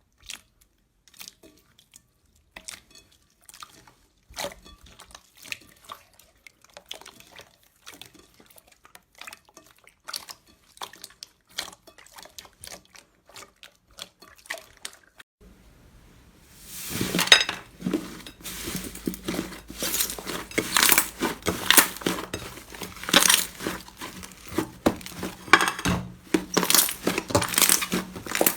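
Slime being squished and worked, giving sparse wet clicks and small pops. About halfway through, a louder, denser run of sticky crackling pops takes over.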